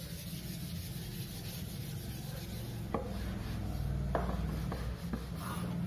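A cloth duster rubbing chalk writing off a board in steady back-and-forth strokes, with a few light knocks as it hits the board.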